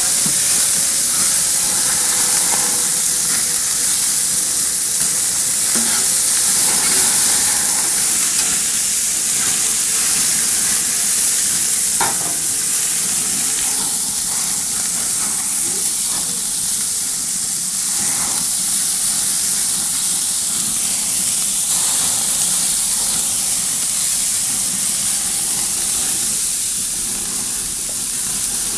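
Köfte and lamb sausages sizzling on a barbecue grill with flames flaring up: a loud, steady hiss, with a few short cracks now and then.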